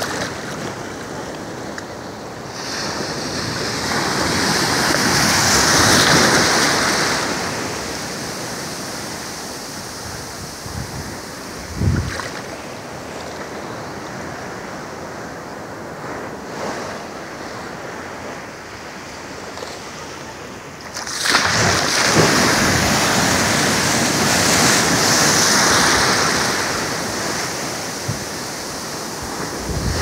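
Atlantic surf in the shallows: waves roll in and break with a rushing wash. Two swells stand out, one building to a peak about six seconds in and a louder one that rises suddenly about twenty-one seconds in and lasts several seconds. There is a single short low thump near the middle.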